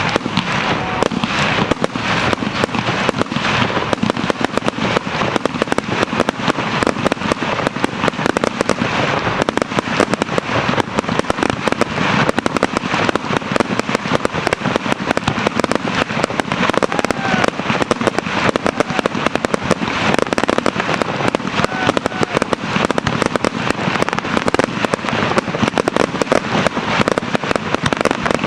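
Starmine fireworks barrage: a rapid, unbroken volley of aerial shell bursts and crackling bangs, many reports a second.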